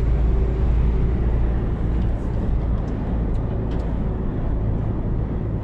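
Steady rumble of a diesel truck driving at highway speed, heard from inside the cab, with road and wind noise in a sandstorm and a few faint ticks.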